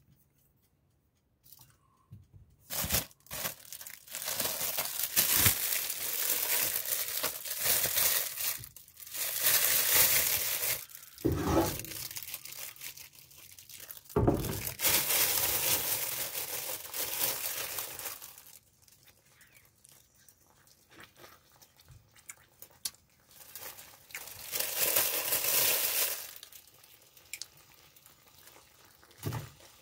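Crinkling and rustling in irregular bursts, loud through the first half, dying down, then one shorter burst near the end.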